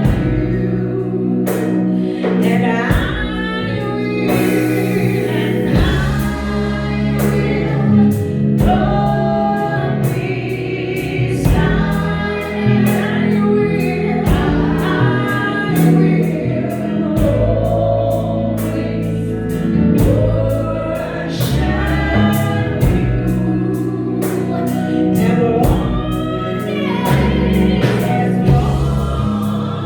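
Gospel worship music: a choir singing to a band, with a steady bass line and a regular drum beat.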